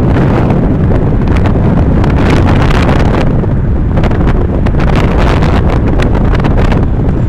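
Loud wind buffeting the microphone at a moving car's open side window, gusting unevenly over the car's low road rumble.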